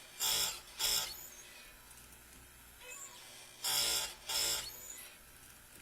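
Oregon electric chainsaw-chain grinder: the spinning wheel is brought down onto the chain teeth in two short grinding bursts near the start, and two more about three and a half seconds in, with the motor running quietly between them.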